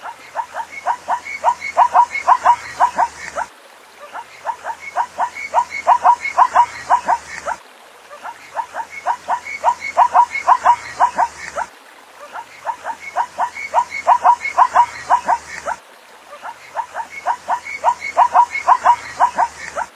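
Zebra barking call: a rapid run of yelping barks, about six a second, in bouts of about three and a half seconds, repeated five times with short pauses between.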